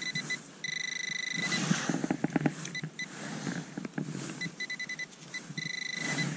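Metal detecting pinpointer sounding in dug soil: a high electronic tone in stuttering beeps and longer held stretches, signalling metal close to its tip. A few sharp knocks and rustles of soil being broken apart come about two seconds in.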